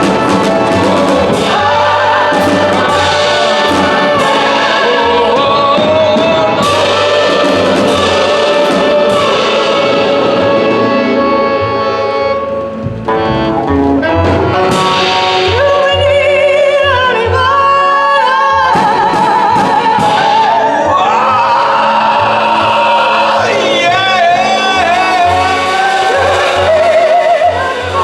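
Choir singing with instrumental accompaniment in a live performance.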